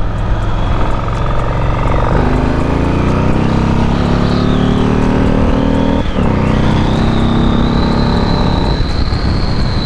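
Yamaha Stratoliner's big V-twin engine running under way, with wind noise over it. From about two seconds in its note climbs as the bike accelerates, breaks briefly midway, then carries on until near the end.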